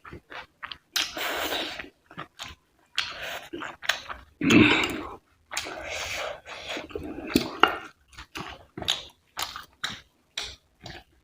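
Close-up eating sounds of rice and curry: wet chewing and smacking in several longer bursts between many short clicks.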